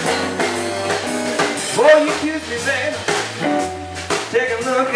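Live blues band playing: electric guitar, bass guitar, drums and saxophone, with a note that slides upward about two seconds in.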